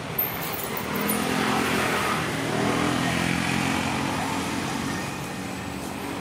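A motor vehicle passing by, its engine running. The sound grows louder about a second in and fades again toward the end.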